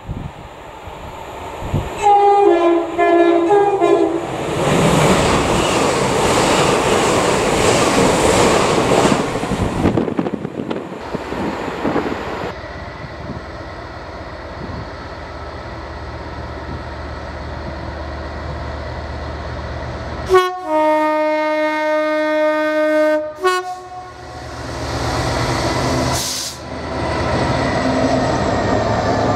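Freightliner Class 66 diesel locomotive sounds its two-tone horn for about three seconds, then runs past with a rising rumble of engine and wagons. Earlier comes a shorter horn blast, followed by several seconds of loud rushing noise.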